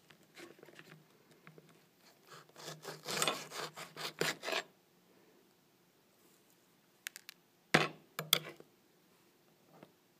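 Table knife sawing and scraping against a plate in a quick run of strokes, cutting into a chili pepper to get its seeds out. A few sharp clicks of cutlery on the plate follow near the end.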